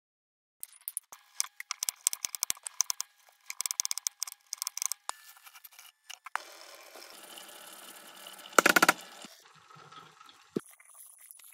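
A knife clicks quickly against a wooden cutting board as carrots are diced. About halfway through this gives way to the steady sound of a pot of boiling water, with one loud splash about three-quarters of the way through as chopped vegetables are tipped into the pot.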